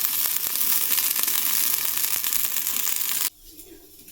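Meatballs sizzling and crackling as they brown in a frying pan. The sizzle cuts off abruptly a little over three seconds in.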